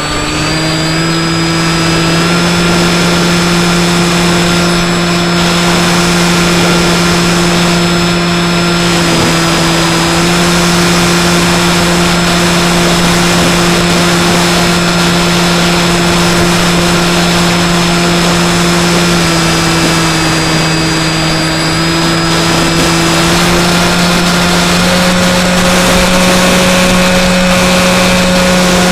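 Skywalker X5 flying wing's electric motor and pusher propeller running steadily in flight, heard close up from the plane itself, over a constant rush of air noise. Its pitch steps up slightly about two seconds in, drops a little around nineteen seconds, and rises again a few seconds later as the throttle is moved.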